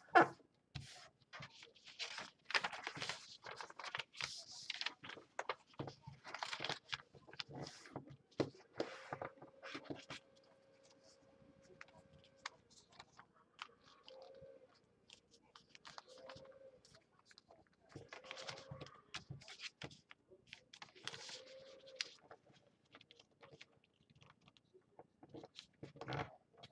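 Origami paper being folded and creased by hand on a tabletop: irregular crinkling, rustling and scraping as the paper is pressed flat and slid. The handling is busiest in the first several seconds, then thins to scattered bursts with quieter gaps in the middle.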